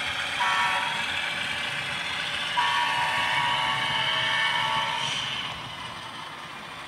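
Diesel air horn from a model locomotive's DCC sound decoder, played through its small speaker: a short blast about half a second in, then a long blast from about two and a half to five seconds, over faint engine rumble. The sound fades out near the end.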